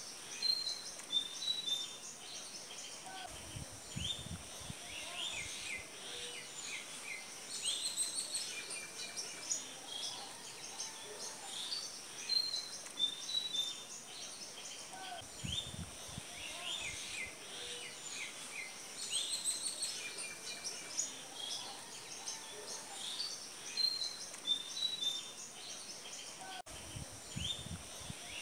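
Small birds chirping and twittering in a busy chorus of short high calls. The same stretch of birdsong comes round again about every twelve seconds, with a brief low rumble each time.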